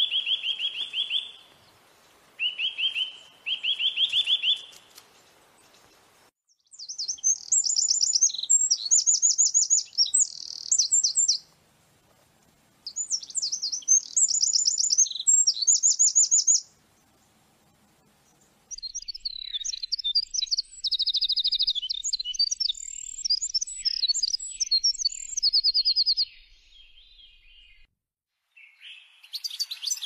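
Songbirds singing: short rapid trills at first, then higher, louder trilled phrases in two bouts, then a busier run of varied chirps and trills. Each stretch starts and stops abruptly, with quiet gaps between.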